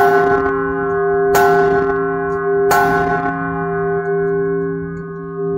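Large bronze church bell struck three times, about a second and a half apart, each stroke ringing on and slowly fading under the next. It is the toll rung for the blessing with the Blessed Sacrament.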